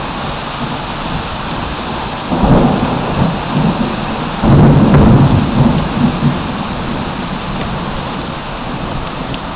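Heavy rain pouring steadily in a thunderstorm, with thunder rumbling twice: a first roll a couple of seconds in and a louder one about halfway through.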